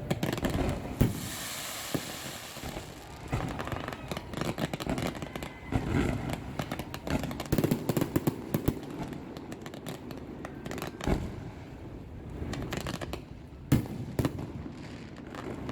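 Fireworks going off: sharp bangs and pops scattered irregularly, with crackling and a hissing burst about a second in; one of the loudest bangs comes near the end.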